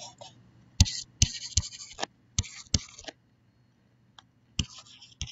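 Stylus tapping and scratching on a tablet surface while handwriting: a string of sharp taps, each followed by a short scratchy stroke, with a pause of about a second past the middle.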